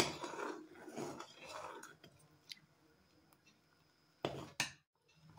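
A spoon stirring thick, boiling kadhi (yogurt and gram-flour batter) in a pan, making wet, squishy stirring sounds for about two seconds. Two short sounds follow near the end.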